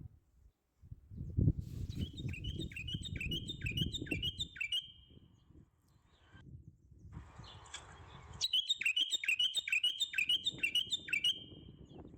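A songbird singing the same phrase twice, each a quick run of about eight falling notes ending in a short held note. Low rumbling noise runs underneath.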